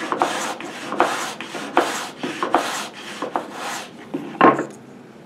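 Sandpaper on a hand sanding block rasping on wood in quick back-and-forth strokes along a miter sanding jig, truing a 45-degree miter on a small wooden piece. The strokes stop about four seconds in and are followed by a single knock.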